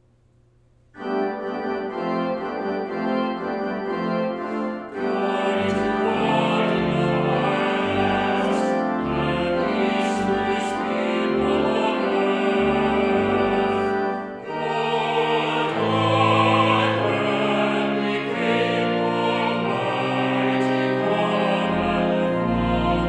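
Church organ starts playing about a second in, and a small mixed choir of men's and women's voices joins it in singing from about five seconds in.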